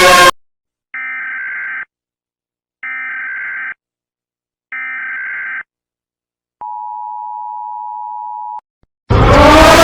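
Emergency Alert System tones: three short screeching data bursts of about a second each, about a second apart, then a steady two-tone attention signal held for about two seconds. A loud falling siren cuts off just as it begins, and a loud horn-like sound with rising pitch cuts in near the end.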